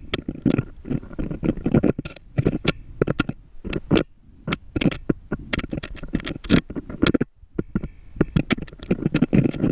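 A GoPro camera rig knocking and scraping against the rock wall of a borehole as it moves through the shaft on its line: a dense run of irregular clicks and knocks over a rumbling scrape.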